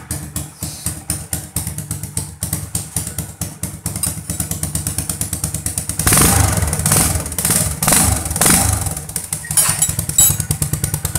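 Rusi Korak motorcycle engine running through a muffler punched full of nail holes, a fast even exhaust beat at idle. In the second half it gets several quick throttle blips. The owner takes the harsh exhaust note for a sign that the punched pipe was refitted wrongly.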